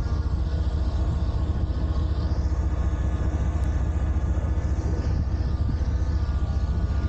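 Skydio 2 quadcopter drone hovering, its propellers giving a loud, steady hum with a fast flutter and several steady whining tones.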